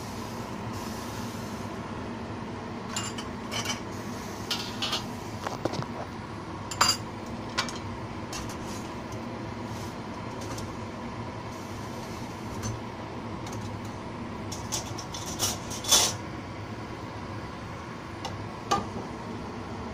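Metal pots, pans and utensils clinking and knocking now and then, over a steady background hum. The loudest clanks come about 7 and 16 seconds in.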